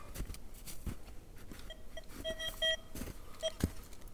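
Metal detector giving short, same-pitched beeps as its search coil passes over a buried test target, starting about two seconds in. Heavy footsteps thud in the mud, one louder thud near the end.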